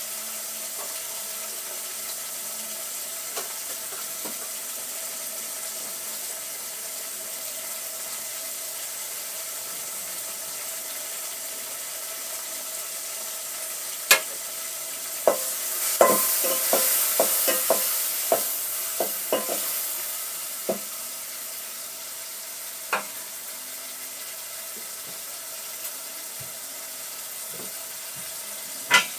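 Tomato sauce frying in a pot with a steady sizzle. About halfway through, a spoon stirs it, knocking against the pot in a quick run of clicks as the sizzle briefly grows louder, then a few single taps follow.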